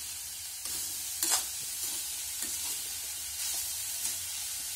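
Grated fresh coconut and jaggery sizzling in ghee in a pan on the gas while being stirred, with a scrape against the pan now and then and one louder scrape about a second in. The jaggery is melting into the coconut, the stage of cooking the sweet modak filling.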